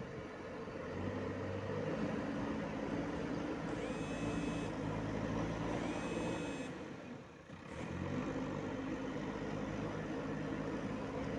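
JCB 3DX backhoe loader's diesel engine running under work load, its pitch rising about a second in. Two high electronic beeps, each about a second long, sound about four and six seconds in, and the engine briefly drops away just past halfway before picking up again.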